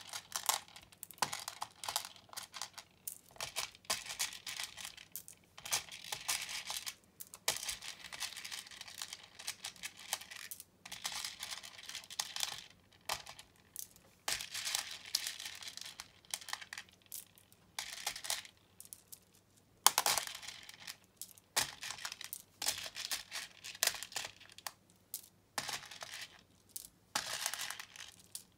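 Small plastic beads clicking and rattling against each other and a plastic surface as fingers rake through a loose pile and pick beads out, in irregular bursts of small clatters, with one sharper click about twenty seconds in.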